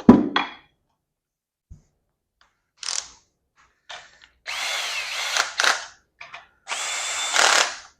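Power drill with a socket spinning the main bearing cap bolts down on a 305 small-block Chevy, two short runs, one per bolt, its motor whine dipping as the first bolt seats. A sharp knock comes right at the start.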